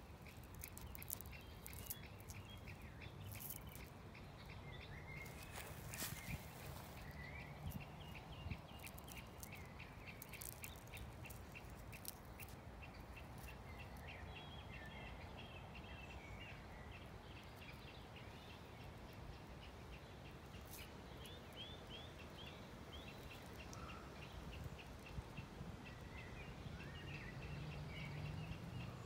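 Small dry crackles and crunches as fingers pick the papery bud caps off new spruce shoots, most of them in the first half, over a steady outdoor hiss. Birds chirp and trill in the background.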